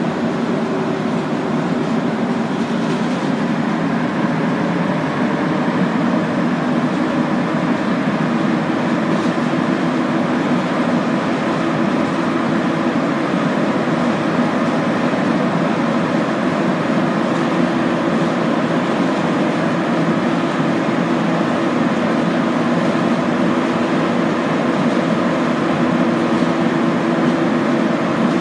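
Montreal metro Azur (MPM-10) train on rubber tyres running steadily between stations, heard from inside the car: an even rumble with a few held tones under it.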